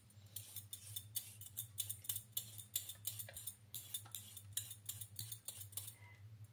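Quick scraping strokes of a blade on a raw carrot as it is peeled, a few strokes a second, over a low steady hum.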